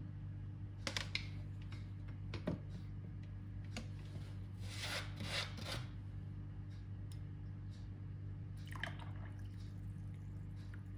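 Steady low electrical hum, with scattered small clicks and a few brief rustling, scraping handling sounds, the longest a little before the middle.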